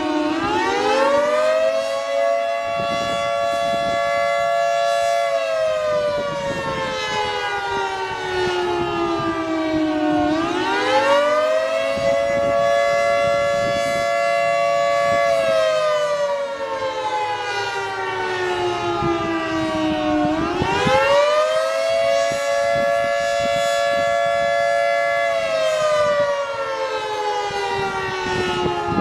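Federal Signal 2T22 dual-tone rotating siren sounding a wail, the Attack (civil defense) signal. Its chord winds up in about a second, holds for a few seconds, then slowly winds down, repeating roughly every ten seconds, with three climbs and a fourth starting at the end.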